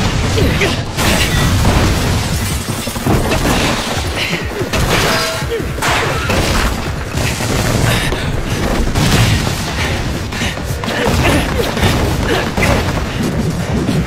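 Anime battle sound mix: dramatic music layered with repeated heavy booms and crashing, shattering debris impacts.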